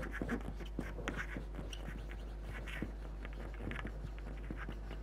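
Marker writing on a whiteboard: a run of faint, short scratchy strokes.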